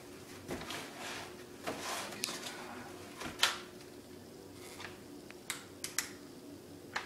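Handling noise as a tan Ares M4 airsoft rifle is taken from its box: rustling of packaging and a scattering of sharp clicks and knocks, the loudest about three and a half seconds in.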